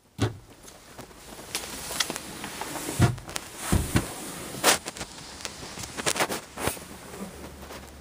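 Irregular knocks, thumps and clicks over a low hiss: footsteps on the trailer floor and a handheld camera being moved. The two heaviest thumps come about three and four seconds in, and a sharper click follows a second later.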